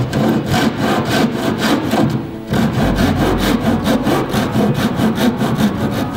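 Hand saw cutting into an old wooden boat plank in quick, even back-and-forth strokes, about four a second, with a short pause about two and a half seconds in. These are depth-guide cuts sawn down to a marked line, ahead of planing the plank to a scarf.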